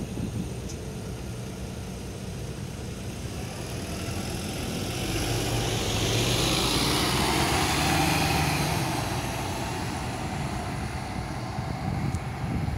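Volvo B7RLE bus's six-cylinder diesel engine pulling away from a stop and accelerating past. It grows louder to a peak about seven to eight seconds in, then fades as the bus drives off.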